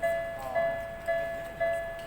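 Railway level-crossing alarm ringing its repeated electronic ding about twice a second, each strike fading before the next. It is sounding at a station crossing during overnight work on the signalling.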